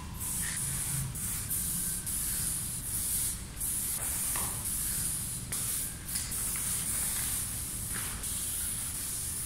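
Aerosol spray paint can hissing in a run of short strokes, each a second or so long with brief breaks between, as sketch lines are sprayed onto a wall.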